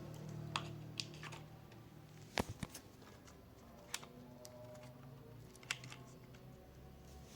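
Scattered light clicks and taps from handling a multimeter's test probes at a wall socket during a voltage test, over a faint low hum.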